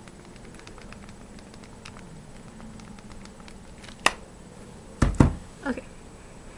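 Close-up handling noise of a device being gripped and moved right at the microphone: faint taps and rubbing, a sharp click about four seconds in, then heavy thumps as it is bumped and repositioned.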